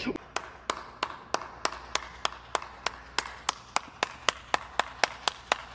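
One person clapping in a slow, steady rhythm, about three claps a second.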